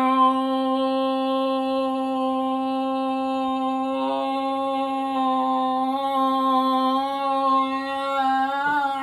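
A man's voice holding one long sung note, steady in pitch for about nine seconds, wavering slightly near the end as he runs out of breath.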